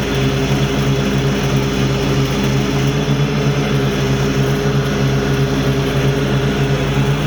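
Exmark Lazer Z zero-turn mower's Kawasaki engine running steadily at full throttle with the mower deck blades engaged, a constant drone while mowing.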